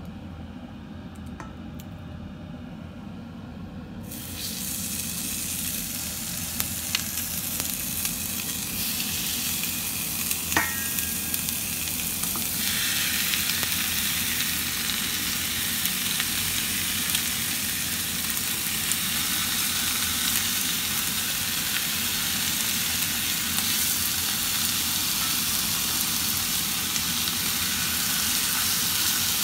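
Chicken drumsticks and thighs sizzling as they sear in a nonstick frying pan. The sizzle starts about four seconds in and gets louder about halfway through as more pieces go into the pan, with a couple of light clicks.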